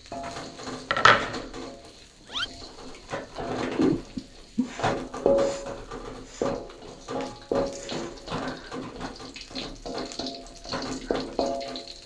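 Spatula knocking and scraping in a nonstick wok as garlic fries, a string of short irregular clatters, some with a brief metallic ring.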